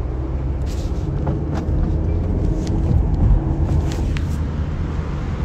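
Steady road and engine rumble inside a moving car's cabin, broken by a few short sharp clicks and knocks, with a quick run of three about four seconds in.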